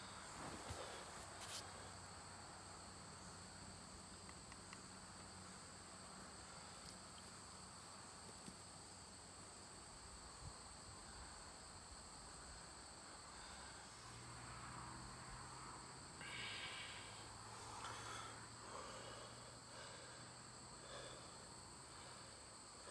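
Near silence outdoors with a faint, steady, high-pitched insect chorus, and a few faint rustles in the second half.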